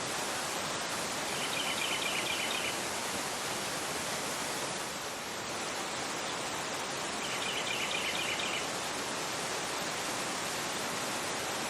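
Fast-flowing river rushing over a rocky bed in a high current, a steady full rush of water. A bird chirps twice in the background, each a short rapid run of high notes, about a second and a half in and again about seven seconds in.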